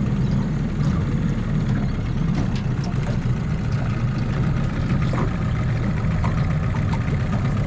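Johnson outboard motor running steadily at low idle, cutting in abruptly at the start.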